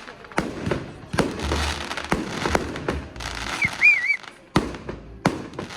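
Fireworks display: shells bursting in a string of sharp bangs, several in a few seconds, with crackling between them. A short warbling whistle sounds about four seconds in.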